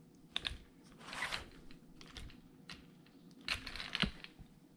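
Faint clicks and rustles of hands handling a plastic 1/16-scale RC truck, with a small cluster of clicks near the end.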